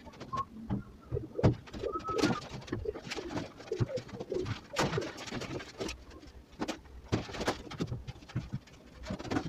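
Doves cooing in low, wavering phrases, with a short higher bird note and several sharp clicks or knocks in between, the loudest about a second and a half in.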